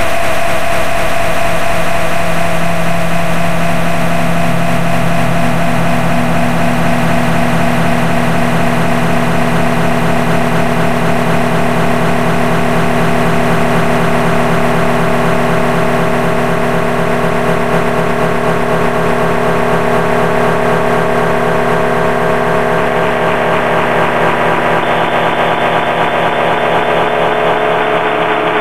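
Harsh noise music: a loud, dense drone of many layered sustained tones with a fast fluttering pulse running through it. The highest sounds drop away near the end.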